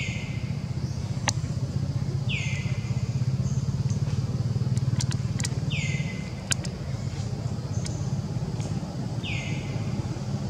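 A steady low hum like a running motor, with a bird repeating a short call that slides down and then holds, four times about three seconds apart. A few sharp clicks in between.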